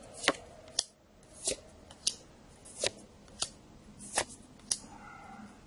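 Magic: The Gathering playing cards being flicked over one at a time, with about eight sharp snaps spaced roughly half a second to a second apart.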